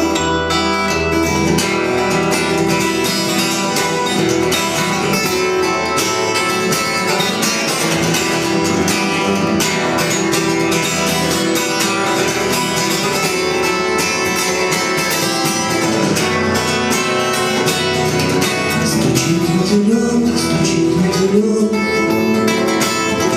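Acoustic guitar playing an instrumental passage of a song with steady plucked and strummed accompaniment.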